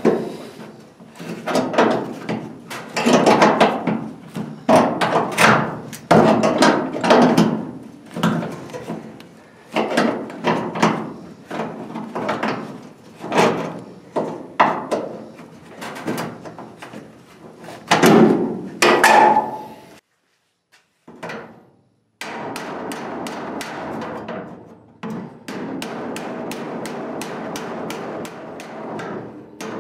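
A hammer striking the sheet-metal flange of a 1966 Mustang's replacement quarter panel, each blow ringing, about one a second, as the flange that was rolled too far is worked back out. After a brief gap near two-thirds through comes a steadier run of quicker, lighter blows against a hand-held dolly.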